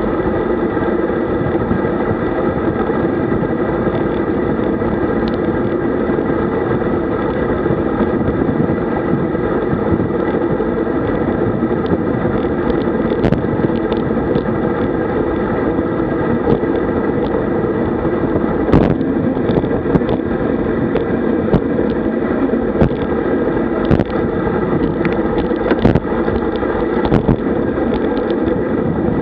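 Steady rush of wind and tyre noise from a road bike rolling at about 50 km/h, heard through a bike-mounted camera's microphone, with scattered sharp clicks and knocks from about halfway through.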